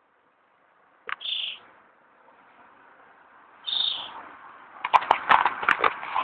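Gunfire of street clashes: a single sharp crack about a second in, then a rapid, irregular run of shots near the end. Two short high bird calls come in between.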